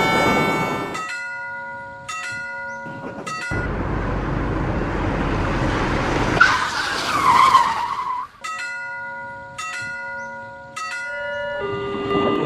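Railroad crossing sound effects. A crossing bell dings a few times, about once a second. A rushing rumble follows, with a high screech that wavers and falls in the middle. The bell dings again, and a train horn sounds near the end.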